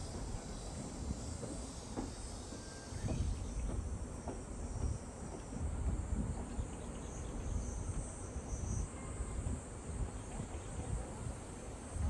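Wind blowing across the microphone in uneven gusts, over a steady high-pitched chorus of insects.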